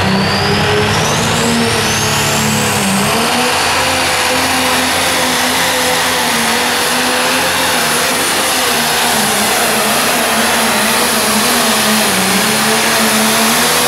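Turbocharged diesel engine of a modified John Deere 7920 pulling tractor running flat out under load as it drags a weight-transfer sled, its pitch wavering slightly. A high turbo whine rises in pitch over the first few seconds.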